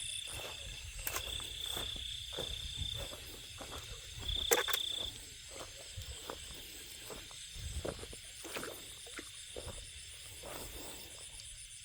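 Insects chirping steadily in high, even tones, with frequent short rustles and knocks close by.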